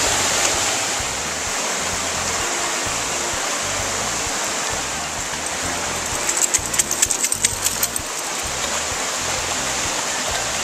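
Shallow creek water running steadily over rocks. About six seconds in comes a quick, uneven run of splashes lasting roughly two seconds.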